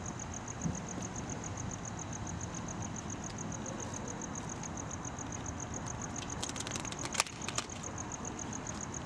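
Outdoor street ambience: a steady low hum of distant traffic with a rapid, evenly pulsing high chirp throughout. A short run of sharp clicks and one snap comes about seven seconds in.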